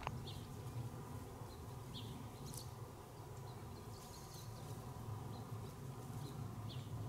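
Quiet open-air ambience: a steady low hum with faint, short, high chirps scattered through it about once or twice a second.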